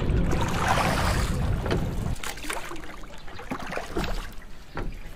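Wooden paddle strokes in lake water beside a small rowing boat, with water splashing and lapping against the hull and a low rumble underneath. About two seconds in, the rumble stops abruptly and only quieter lapping water and a few light paddle splashes remain.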